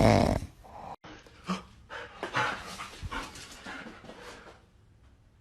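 A dog panting in quick short breaths for a few seconds, after the tail of a louder noisy sound that stops about half a second in.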